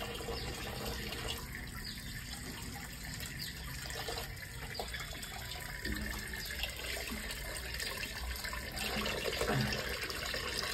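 Tap water running steadily into a plastic basin, splashing as crab pieces are rinsed under the stream.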